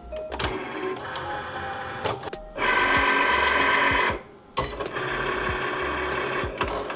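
Cricut Explore cutting machine running, its motors whirring in starts and stops as it moves the mat and the cutting carriage over a sticker sheet. The loudest spell lasts about a second and a half, near the middle, followed by a brief pause before it carries on more steadily.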